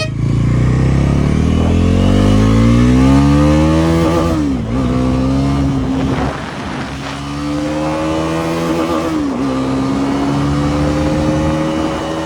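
Bajaj NS400Z's 373 cc single-cylinder engine accelerating, its note rising through the revs, with two upshifts, about four and a half and nine seconds in, where the pitch drops and then climbs again.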